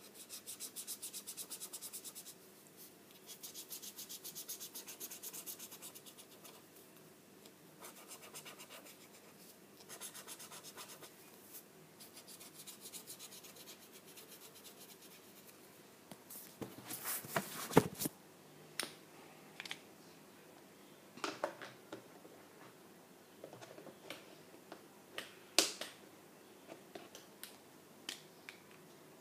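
Paint marker scratching quickly back and forth on paper as it colours in a letter, in several spells separated by short pauses. About halfway through it gives way to scattered louder clicks and knocks.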